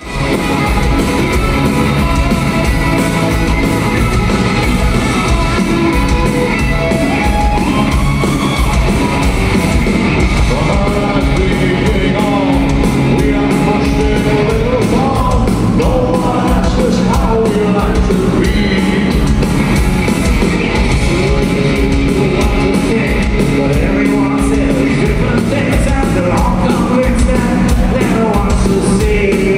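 Power metal band playing live, loud and steady: electric guitars, drums with steady cymbal hits, and lead vocals, heard from the audience floor.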